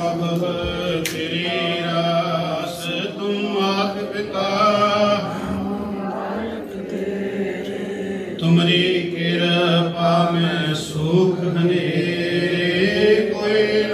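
A man chanting Sikh devotional verses into a microphone, in long held notes with short breaks between phrases.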